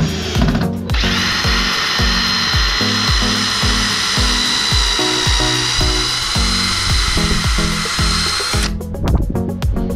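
Craftsman cordless drill running at a steady whine while driving a screw into wooden framing, stopping near the end. Background music with a steady beat plays throughout.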